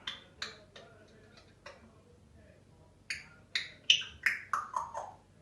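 A bird calling in short sharp chirps: a few spaced notes, then a quick run of about seven that step down in pitch.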